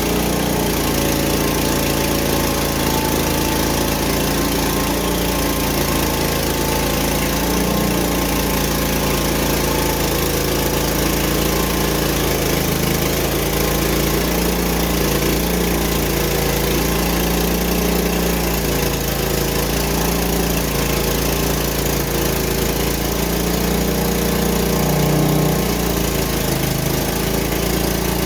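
Frontier OS23 portable bandsaw sawmill's small engine running steadily while milling pine boards, its pitch wavering a little as the load shifts.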